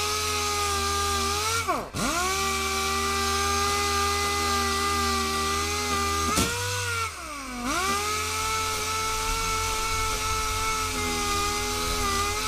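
A high-speed power tool motor running with a steady whine. Its pitch sags sharply twice, near two seconds in and again about seven seconds in, as it is loaded against the work, then recovers.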